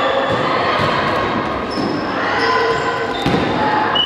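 Echoing sports-hall noise during a volleyball game: volleyballs thudding, with short high squeaks from shoes on the court floor and voices in the background.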